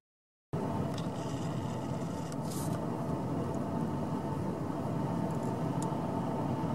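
Steady engine and tyre noise heard from inside a car driving slowly behind a racing cyclist, after a half-second dropout at the start.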